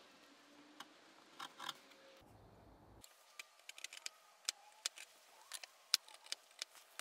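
A wood chisel pushed by hand, paring and cleaning up the edges of a drilled oval hole in a wooden board. It makes faint short scrapes and crisp little clicks as the blade shears off chips, coming more often in the second half.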